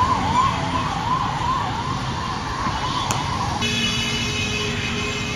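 An electronic siren, such as a passing emergency vehicle's, yelping rapidly up and down about twice a second. About three and a half seconds in it stops and gives way to a steady held tone of several notes at once.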